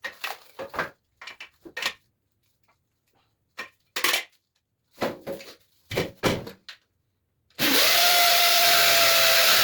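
A few short scrapes and knocks of handling, then, about three quarters of the way in, an electric drill with a masonry bit starts up and runs at a steady pitch, drilling a hole in the wall. The drill is the loudest sound.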